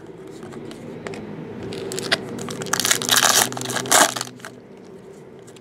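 A trading-card pack's foil wrapper being torn open and crinkled, loudest from about two to four and a half seconds in.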